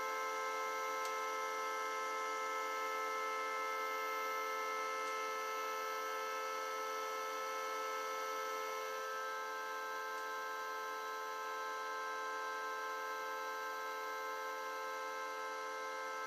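Heating and cooling plant machinery, such as pumps and heat-exchange equipment, running with a steady hum made of several held tones. One of the higher tones drops away about halfway through.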